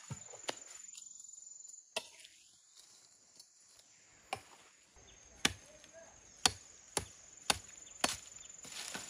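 Chopping blows on wood: a few scattered strokes, then a steady run of sharp chops about two a second from about halfway. A steady high insect trill runs behind.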